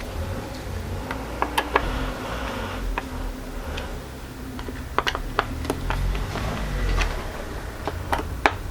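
Irregular sharp clicks and light knocks from hand work on a wooden stool as its top is fastened back on with clips and screws.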